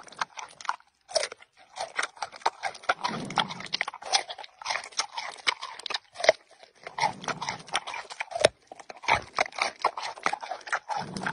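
A giant panda biting and chewing a carrot: a run of irregular crunches.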